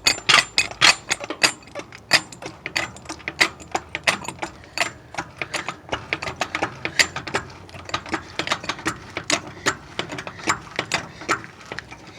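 A jack being worked to raise a pickup's front end: a quick, uneven run of metal clicks and clacks, several a second.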